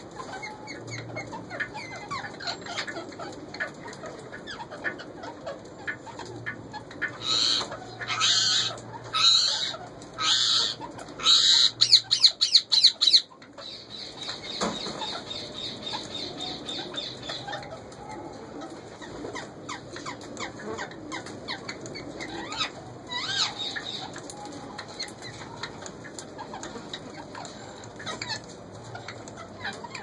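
Pair of Indian ringneck parakeets in a wire cage: a run of about six loud bursts of wing flapping from about seven seconds in, then a thin high steady sound lasting a few seconds, over softer bird sounds.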